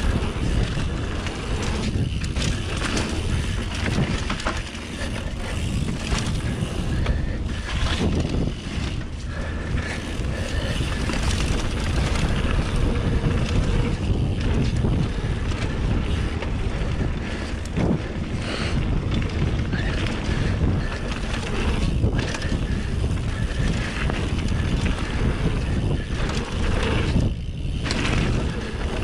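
Wind rushing over the microphone while a mountain bike rolls fast down a packed dirt trail, its tyres running on the dirt, with short clatters from bumps every few seconds.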